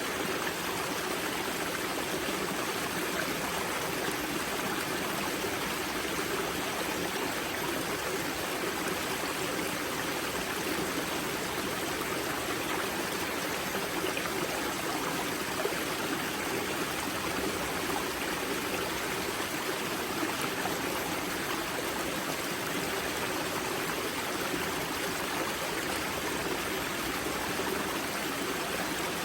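Spring-fed mountain stream at the river Grza's wellhead, water rushing and splashing over rocks in a steady, even flow.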